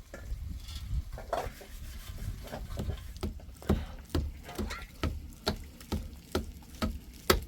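A cooking utensil knocking repeatedly, about two to three strokes a second, with one louder knock near the end, over a low rumble.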